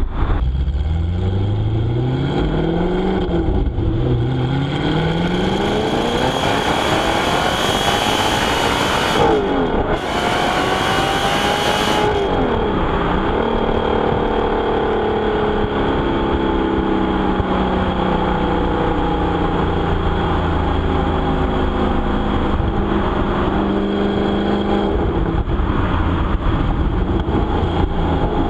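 Audi R8's 4.2-litre V8 engine and exhaust pulling hard through the gears, the pitch climbing with revs and dropping sharply at each of three gear changes in the first half. It then settles into a steady, slightly wavering note at part throttle.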